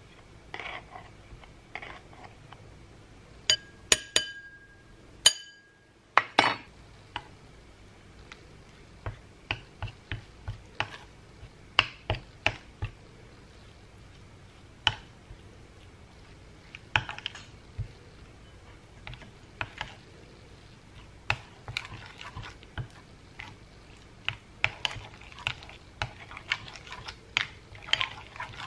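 Metal spoon stirring sour cream and ground mustard in a small ceramic bowl, tapping and scraping against the bowl in irregular clicks. A few sharp, ringing clinks on the bowl about four to five seconds in.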